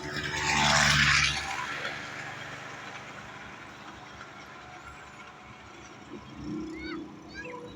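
A vehicle passing close by: a rushing swell that peaks about a second in and fades away over the next two seconds. A few short high chirps come near the end.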